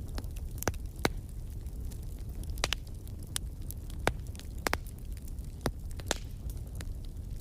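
Wood fire crackling in a fireplace: irregular sharp pops and snaps, about a dozen, over a steady low rumble of the flames.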